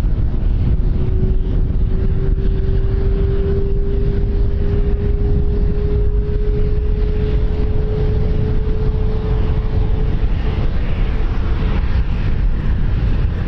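Wind buffeting the microphone, with a distant aircraft engine's tone rising slowly in pitch and fading out about ten seconds in.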